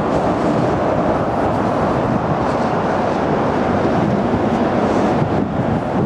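Wind buffeting the camera's microphone outdoors, a steady loud rushing rumble with no distinct events.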